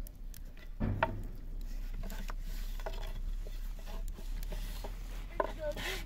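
Scattered light knocks and clicks with rubbing in between, as of things being handled and set down.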